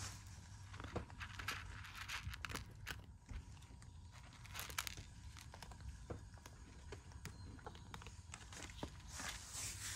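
Cats eating dry food: irregular small crunches and clicks.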